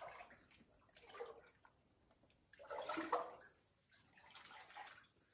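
Water trickling and dripping off the rock of a cave, faint and uneven, louder for a moment about three seconds in.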